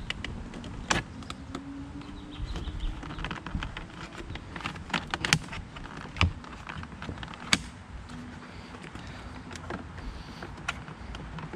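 Scattered small clicks and scrapes of a thin-bladed screwdriver prying at the plastic trim and hidden retaining clip of a BMW E39 rear-door sunshade, feeling for the clip to pop it out.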